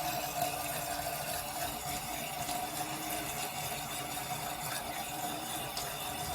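Toilet tank fill valve running, a steady whine over hissing water; a lower tone drops out about halfway.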